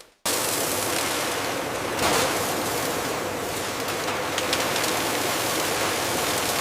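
Steady factory machinery noise: an even, loud hiss with a faint hum, starting abruptly after a brief silence, with a small swell about two seconds in.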